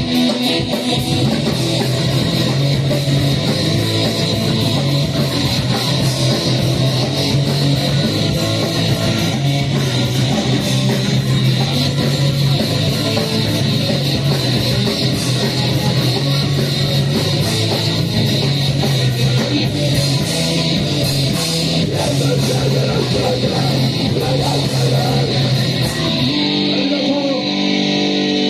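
Band playing loud, distorted heavy music: electric guitar and bass over fast drumming. Near the end the drums stop and the guitar is left holding a ringing chord.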